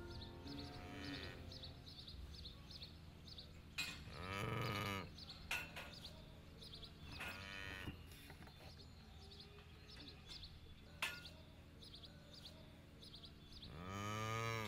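Cattle mooing: two long, loud moos, one about four seconds in and another at the end, with a fainter moo in between.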